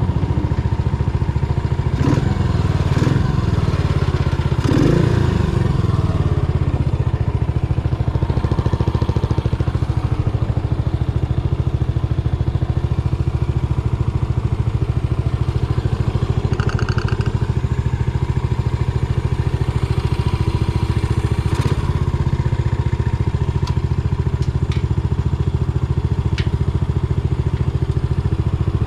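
Yamaha SR400's air-cooled single-cylinder engine running, its pitch shifting in the first few seconds and then holding steady.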